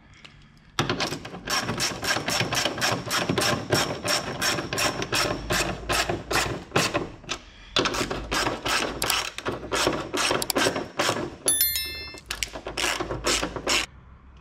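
Background music with a fast, steady beat that starts sharply about a second in, breaks briefly near the middle and stops just before the end. A short electronic chime sounds near the end.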